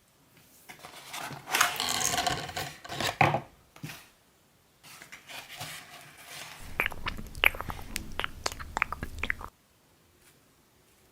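ASMR eating sounds: biting and crunchy chewing. A couple of noisy bites come in the first few seconds, then a run of sharp crunching clicks starts about five seconds in and stops suddenly near the end.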